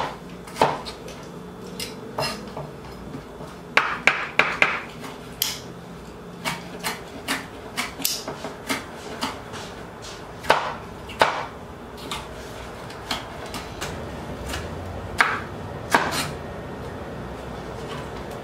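Chef's knife slicing red bell pepper into thin strips on a wooden cutting board: irregular sharp knocks of the blade striking the board, with a quick run of cuts about four seconds in.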